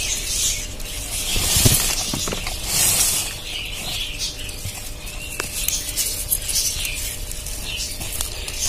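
Rustling and crackling of orchid leaves and dry roots as hands part a potted dancing-orchid clump to pull off a plantlet, with a few small sharp snaps.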